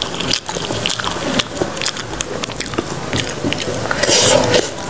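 Close-miked eating sounds: biting and chewing raw young banana coated in sambal, with dense wet mouth clicks and smacks throughout. A louder hissy mouth noise comes about four seconds in.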